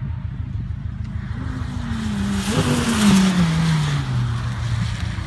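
Audi R8's V10 engine in a high-speed flyby: the engine note grows as the car approaches, peaks about two and a half seconds in with a burst of tyre hiss off the wet track as it passes, then drops in pitch as it pulls away.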